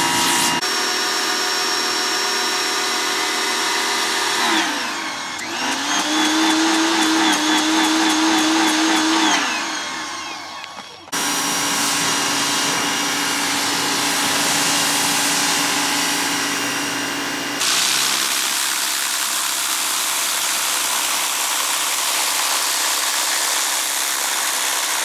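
Electric pressure washer running: a steady motor whine over the hiss of the spray. About five seconds in the motor's pitch dips and climbs back up, and the sound changes abruptly near eleven and again near eighteen seconds.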